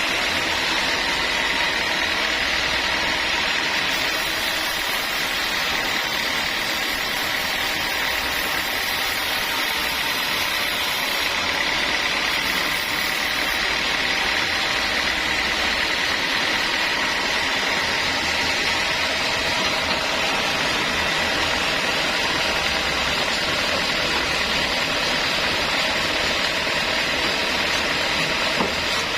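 Sawmill saw running steadily while sawing a large teak log: a continuous mechanical din with a steady high whine, and an added high hiss for several seconds about four seconds in.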